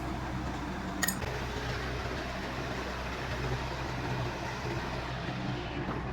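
Steady low mechanical hum, with a single sharp click about a second in.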